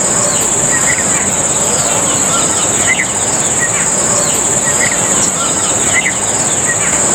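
Continuous high-pitched drone of an insect chorus, with short bird chirps repeating about once a second over a steady background hiss.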